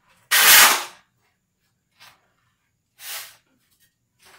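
Shovel scooping sand off a concrete floor: one loud scrape lasting about half a second near the start, then a few shorter, fainter scrapes of sand about two and three seconds in.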